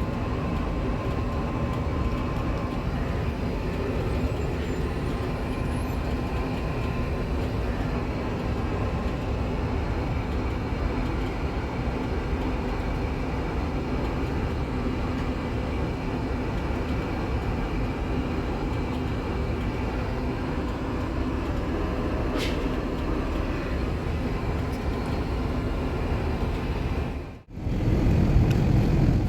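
Steady rushing cabin noise of an Airbus A380 airliner, strongest in the low rumble, with a few faint steady hums. It drops out briefly near the end and comes back louder and deeper.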